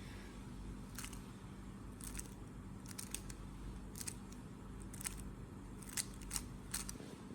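3x3 Rubik's cube being turned through an algorithm: a dozen or so quick plastic clicks of the layers snapping into place, some in fast pairs and triplets, over a faint steady hum.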